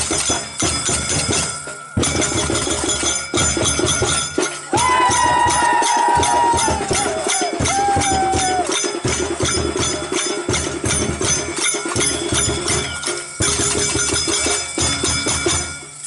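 Rhythmic music with a steady drum beat and jingling percussion. About five seconds in, a held melodic line enters and glides downward in steps for about four seconds.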